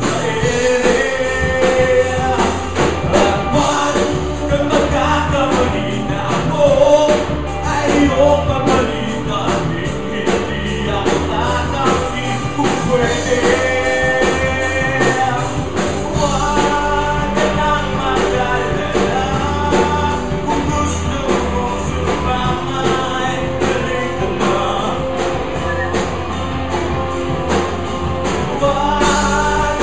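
Live rock band playing a song, with a male lead singer over electric guitars and a drum kit.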